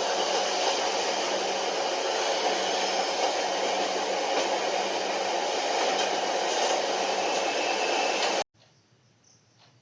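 Steady rushing noise of a moving train heard from inside the coach, cutting off suddenly about eight and a half seconds in to a quiet background with faint chirping.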